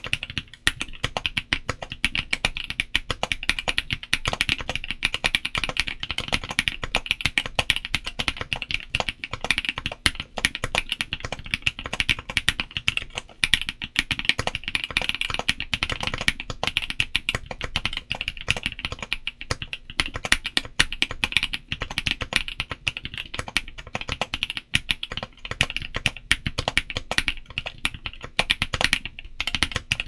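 Fast, continuous typing on an MKC75 gasket-mounted mechanical keyboard filled with foam, fitted with Kailh Cream linear switches and doubleshot ABS keycaps: a dense, unbroken stream of keystrokes.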